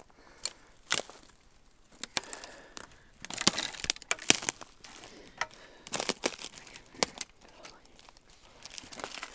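Footsteps crunching through dry brush, with twigs and branches cracking and scraping in irregular sharp snaps and short bursts while pushing through the undergrowth.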